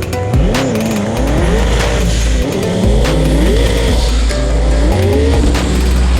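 Sand buggy engine revving hard, its pitch rising and falling repeatedly as the throttle is worked, under music with a heavy bass beat.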